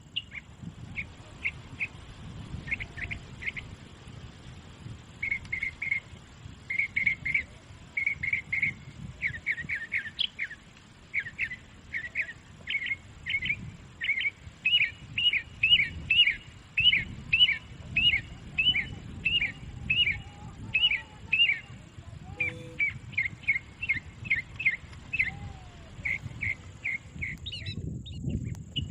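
A bird chirping over and over in quick series of short, high notes. The chirps grow louder toward the middle and are backed by a low rumble.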